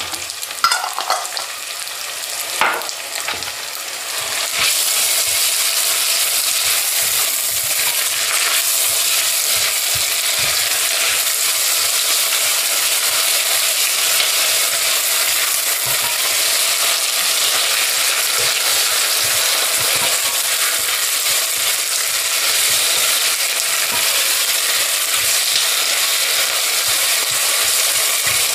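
Onion, carrot and pepper frying with tomato paste in a pot, stirred with a spatula: a steady sizzle with light scraping. The sizzle gets louder about four seconds in and then holds steady.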